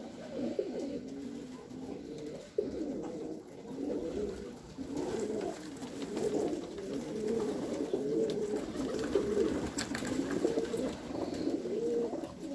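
Several Pakistani high flyer pigeons cooing, their coos overlapping and wavering up and down without a break. A single sharp click comes about two and a half seconds in.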